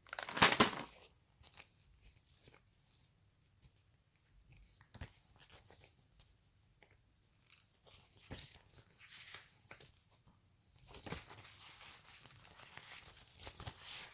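Crinkly snack packaging and paper cards being handled. A loud rustle comes right at the start, then scattered light rustles and taps, growing busier near the end.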